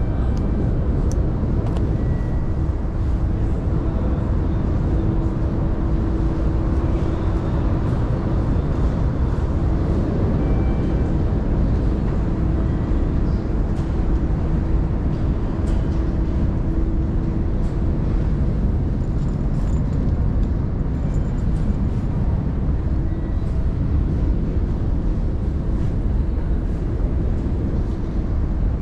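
Steady low rumble of a busy railway station interior, with a faint held hum through much of it and scattered light ticks.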